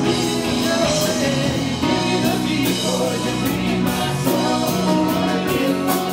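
Live rock band playing with a man singing, over electric guitar, electric bass, keyboard and drums.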